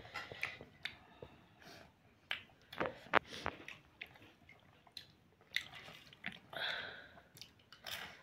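A carbonated drink poured from a can into a ceramic mug, the liquid splashing and fizzing, among scattered small clicks and knocks.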